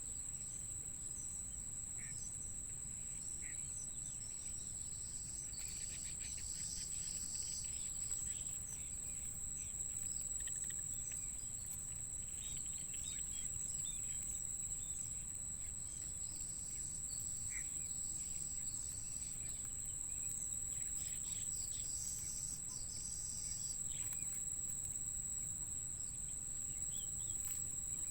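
Steady, high-pitched insect trill, cricket-like, with scattered faint short chirps over a low background hum.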